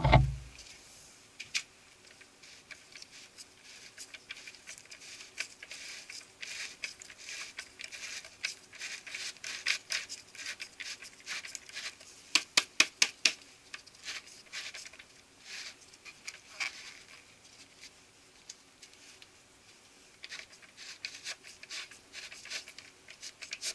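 Spent developer powder being shaken out of a Ricoh copier developer unit (Type 24) onto newspaper during a developer change: irregular pattering and rustling, with a quick run of about six sharp taps about halfway through.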